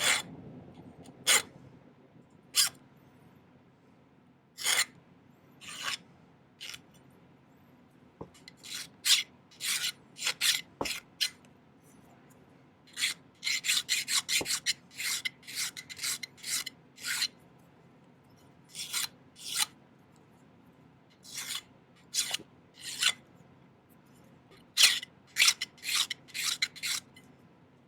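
Hand file rasping along the sawn edge of an 18-gauge sterling silver sheet piece, dressing the edge smooth. The strokes are short and come in uneven runs with pauses between them, and they are quickest in a run in the middle.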